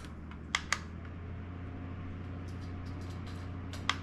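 INMORVEN rechargeable camping fan with a brushless motor running, a quiet steady hum that is barely audible. A faint higher tone joins about a second and a half in, and there are a few light clicks near the start and again near the end.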